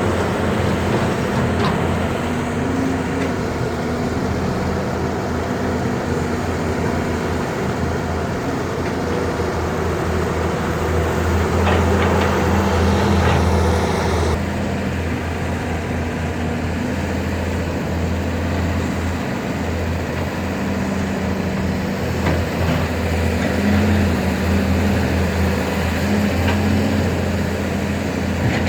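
Heavy diesel excavator engines running steadily under load, their pitch rising and falling a little as they work, with a few faint knocks about midway.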